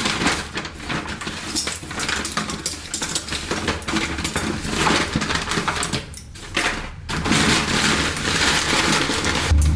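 Crinkling and clattering of takeout food packaging and cutlery being handled, a busy stream of small clicks and rustles that pauses briefly about six seconds in.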